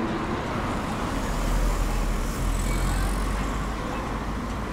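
Street traffic: cars driving past on a city road, with a low rumble that swells around the middle and eases off.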